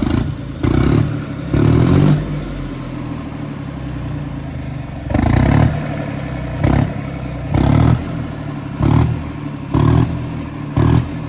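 John Deere 5305 three-cylinder diesel tractor engine idling through a new steel chrome silencer and being blipped with about nine quick throttle revs. Three come close together at the start and six more follow from about five seconds in.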